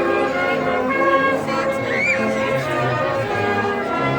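Orchestral music with brass, sustained chords changing every fraction of a second, with a short sliding high sound about two seconds in.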